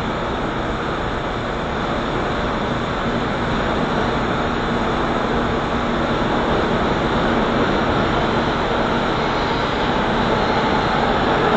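R179 subway train approaching through the tunnel: a steady rumbling noise that grows slowly louder as it nears.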